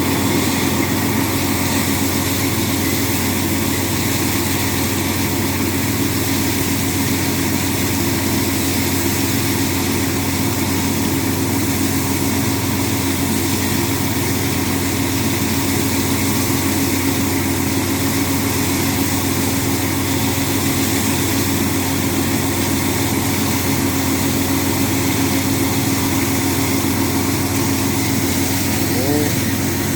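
Borehole drilling rig machinery running steadily, a loud, even engine hum that holds without change.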